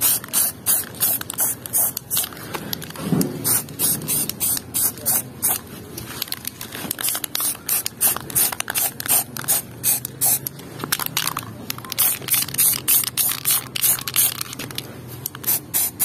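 Samurai high-temperature matte black aerosol spray paint can hissing in short, quick bursts, about three a second.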